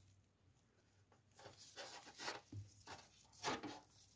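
Light, irregular tapping and rustling of plating-kit wires and an alligator clip against a tray, starting about a second and a half in.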